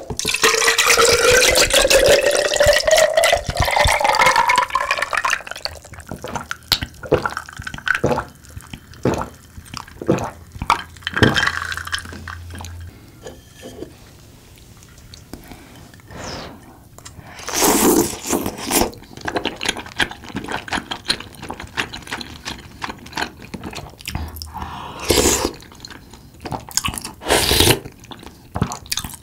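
Coolpis drink poured into a glass mug of ice, the pouring note rising steadily as the glass fills over the first few seconds, followed by scattered clinks and ticks. Later a spoon scoops soupy tteokbokki, and there are a few short, loud slurps of broth near the end.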